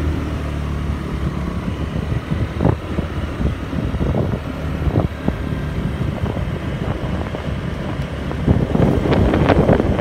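A motor vehicle's engine running steadily on the move, with wind buffeting the microphone that grows stronger near the end.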